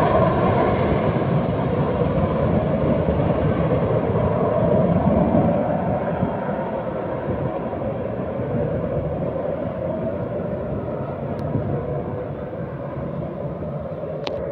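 Distant jet fighter's engine noise, a steady rumble that slowly fades after about five seconds as the aircraft moves away.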